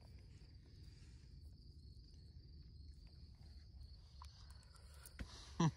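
Crickets chirping in a steady high-pitched trill over a low background rumble. A brief loud voice sound comes just before the end.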